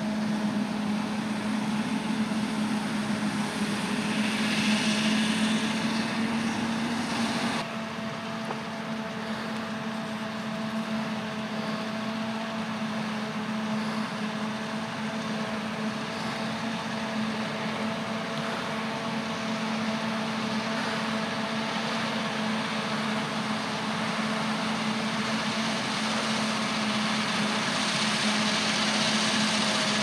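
Claas Jaguar 970 forage harvester chopping maize, its engine and chopper running steadily with a constant hum and a hiss of crop, mixed with the engines of tractors driving alongside with trailers. The sound changes abruptly about eight seconds in.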